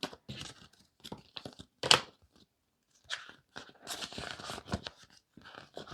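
Paper banknotes being handled: a run of short crisp rustles and light taps, the sharpest about two seconds in, with a longer rustle around four seconds in.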